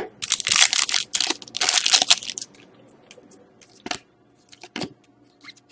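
Foil wrapper of a hockey card pack crinkling and tearing for about two and a half seconds, then a few scattered light clicks.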